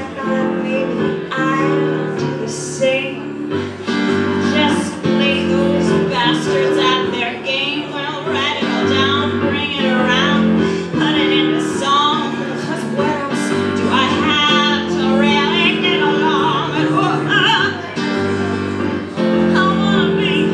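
A woman singing with a wavering vibrato while accompanying herself on an electric stage piano, playing chords that change about once a second.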